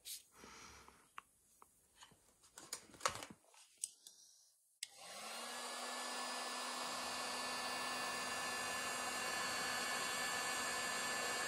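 Small clicks and rustles of hands sliding heat-shrink tubing over a wire splice, then about five seconds in an electric heat gun switches on and runs steadily: a fan rush with a low motor hum that rises as it spins up, heating the shrink tubing over the splice.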